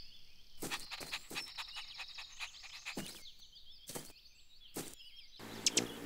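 Cartoon garden sound effects: small birds chirping, with a run of soft knocks and taps as the animated puppy walks about. Near the end a fuller, steadier sound with sharp clicks comes in.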